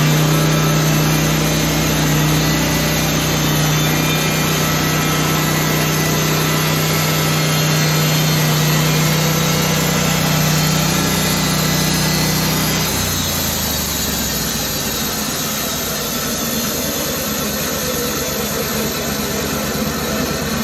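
Portable band sawmill's engine running steadily while sawing spruce. About two-thirds of the way through, its strong steady note drops away and the sound turns lower and rougher with a fast, even pulsing.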